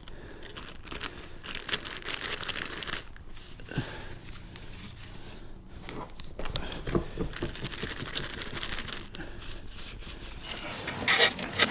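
Motorcycle tyre being worked onto its rim by hand with tyre levers: irregular scraping, rubbing and crinkling of the lubed rubber bead against the metal rim, with scattered clicks and a few sharper metal knocks near the end.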